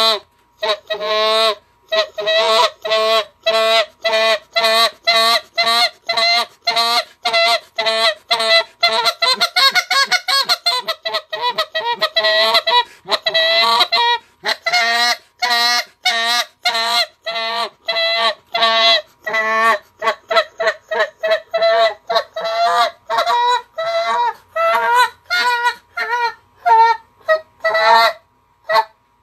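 Big Kahuna Next Gen Canada goose call blown in a long run of short honking notes, about two a second, packing closer together after about twenty seconds: renditions of the goose's train note, with the call's end plugged so the sound comes out of the volume hole.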